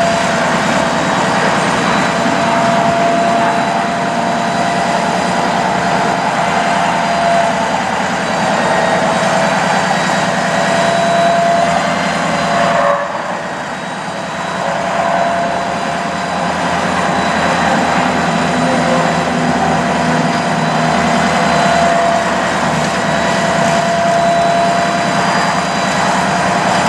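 Ford F-550 bucket truck's engine running at raised PTO speed, driving the hydraulics while the Versalift boom is raised and swung, with a steady whine over the engine. The sound drops off for a second or two just before halfway, then picks back up.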